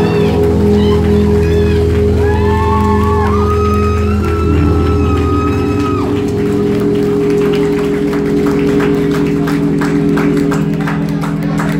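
A sustained droning chord left ringing from the band's amplified instruments as the set ends, with crowd whoops in the first seconds and applause growing over the last few seconds.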